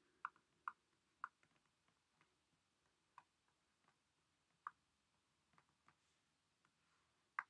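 Near silence with about six faint, short clicks spread unevenly through, from handwriting on screen with a digital pen tool.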